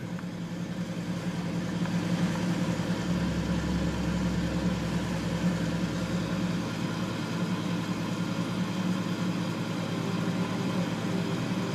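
Harman pellet stove running just after ignition: a steady electric hum with rushing air from its combustion blower. The sound swells a little over the first two seconds, then holds even.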